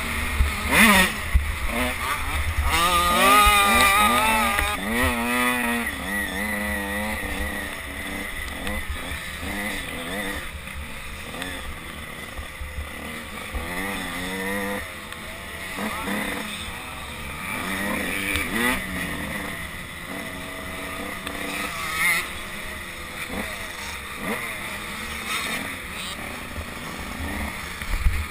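KTM 85 two-stroke motocross bike engine revving hard, its pitch climbing and dropping again and again as it accelerates and shifts, with wind rumble on the helmet-mounted microphone.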